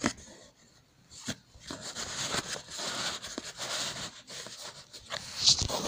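Handling noises from a small candy vending machine: a few light clicks, then rubbing, crinkling and small ticks as hands work the machine and its candy.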